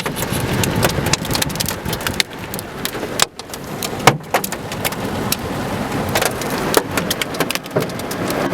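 Hailstones knocking irregularly, several a second, over a steady hiss of rain, at the tail end of a supercell's hailfall.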